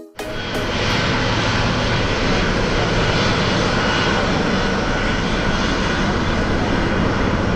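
Air France Boeing 777-200ER's GE90 turbofans at takeoff power as the jet rolls down the runway: a loud, steady engine noise with a thin high whine, building over the first second and then holding.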